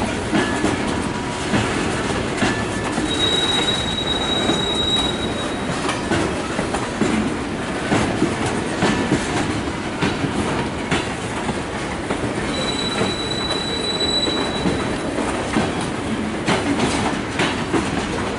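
Freight train of tank cars rolling by with a steady rumble and wheels clacking over rail joints. A high wheel squeal rings out twice, a few seconds in and again about two-thirds through.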